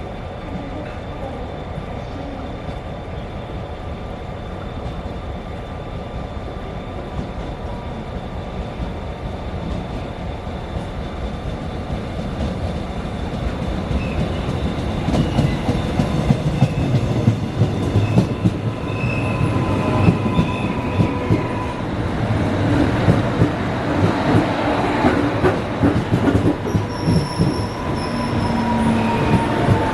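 An out-of-service passenger train approaching along the platform, its running noise growing louder from about halfway through, with high wheel squeal and a clatter of wheels over rail joints in the second half.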